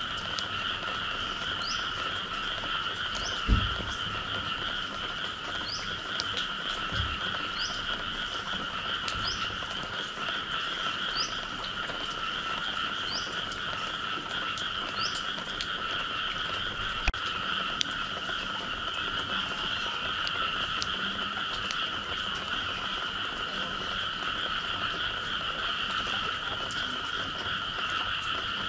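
A dense chorus of frogs calling after rain, a steady unbroken sound, with short rising chirps every couple of seconds in the first half. A low thump sounds about three seconds in, and a softer one a few seconds later.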